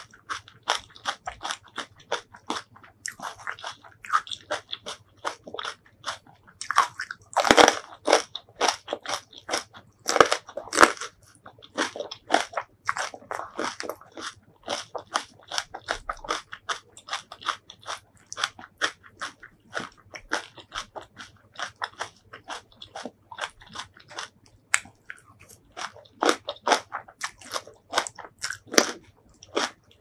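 Close-miked crunching and chewing of crisp green chili kimchi: a steady run of quick, sharp crunches, with a few louder bites partway through.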